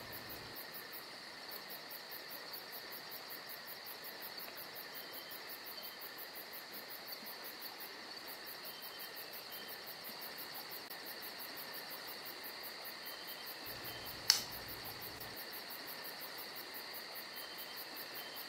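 Crickets chirping steadily in a night-time chorus, with one sharp click about three-quarters of the way through.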